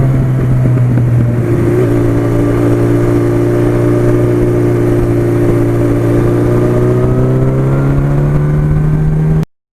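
1982 Suzuki GS1100E's air-cooled inline-four engine running steadily under way, its pitch rising gently over the last few seconds, with a low wind rumble on the microphone. The sound cuts off suddenly near the end.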